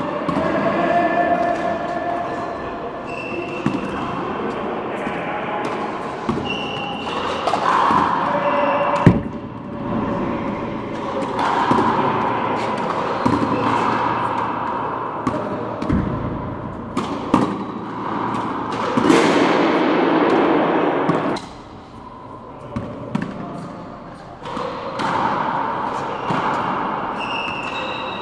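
Frontenis rally: a rubber ball struck by rackets and smacking off the fronton wall and floor, sharp irregular impacts ringing in a large hall, with voices in the background.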